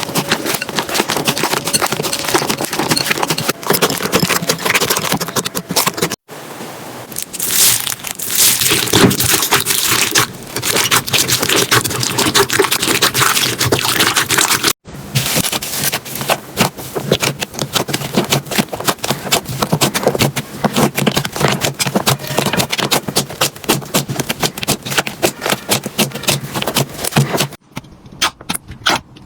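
Slime being squeezed, pressed and stretched, with dense crackling, popping clicks and squishing. It comes in several separate stretches broken by sudden cuts, about six, fifteen and twenty-eight seconds in.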